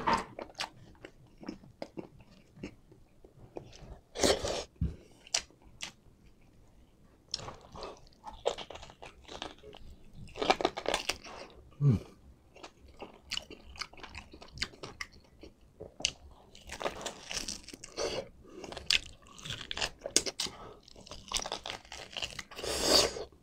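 Close-up eating sounds: biting and chewing soft beef tendon and meat off a beef shank bone, with irregular wet mouth clicks and smacks and a few louder bursts.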